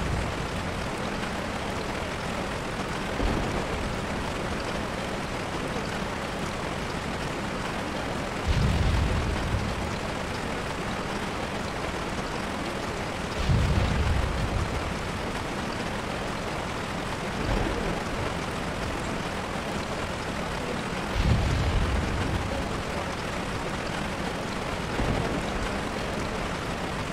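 Steady rain-like hiss with low, thunder-like rumbles swelling up and fading every few seconds: three stronger rumbles and a few fainter ones.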